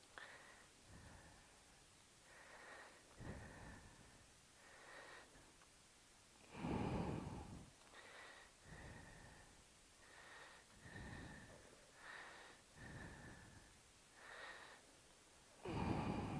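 A man's breathing close to the microphone: a string of soft breaths in and out, about one a second, with a louder breath about seven seconds in and another near the end.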